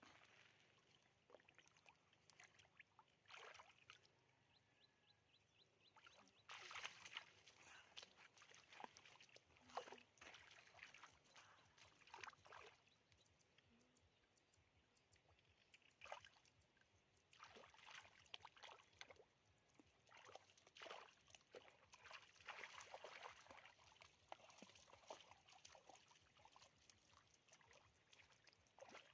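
Faint, irregular splashing and sloshing of shallow water, coming in bursts with quieter gaps between them.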